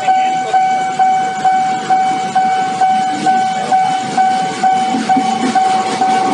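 Level-crossing warning bell ringing steadily, about two strikes a second. From about five seconds in, the rumble of an approaching train grows beneath it.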